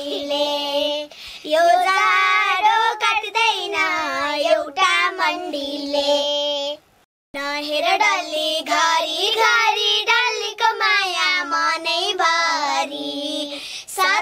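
Young girls singing a song together without accompaniment, their high child voices carrying a sustained, gliding melody. The singing breaks off into a brief silence about seven seconds in, then resumes.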